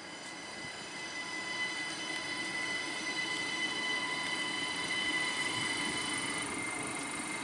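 SNCB Siemens Desiro ML (AM 08) electric multiple unit rolling past on the rails, growing louder, with a steady high-pitched squeal of several tones over the running rumble. Some of the higher tones cut out about six seconds in.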